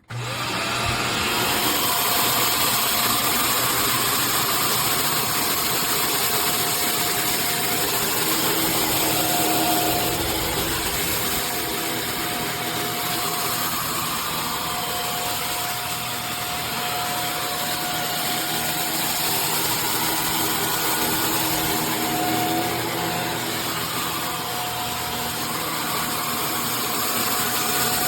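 Upright vacuum cleaner running steadily, its motor noise starting abruptly at the outset.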